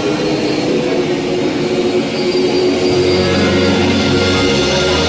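Live gospel choir and band: held chords in the middle range over piano, with low bass notes joining about three seconds in.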